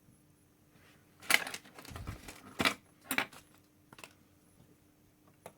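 Side cutters snipping the soldered leads of an LED and keyboard switch on a circuit board: a few sharp clicks, the loudest three in the first half, then two fainter ones.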